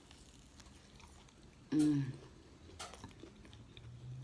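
Close-up chewing and mouth noises of a person eating. About two seconds in there is a short, loud hummed 'mm' from the eater, and a low hum returns near the end.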